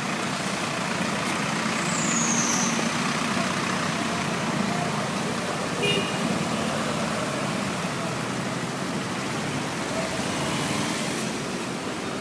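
Road traffic: vehicle engines running under a steady noisy wash, with a brief high beep about six seconds in.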